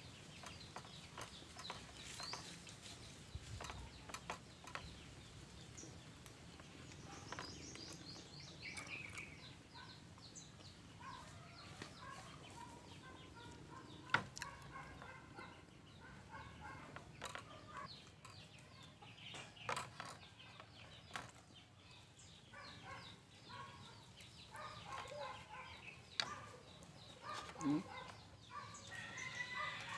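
Chickens clucking on and off in the background, the calls coming thicker in the second half. A few sharp clicks of a glass and dishes on a wooden table, the loudest about halfway through.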